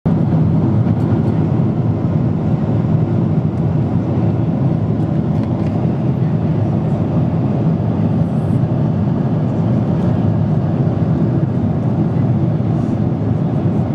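Steady cabin noise of a jet airliner in cruise, heard inside the cabin by a window seat: a constant low drone of engines and rushing air.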